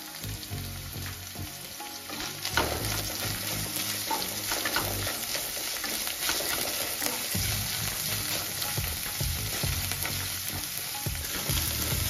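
Sliced onion, green chillies and curry leaves sizzling in hot oil in a non-stick pan as they are sautéed. From about two and a half seconds in, a wooden spatula scrapes and taps against the pan as it stirs them.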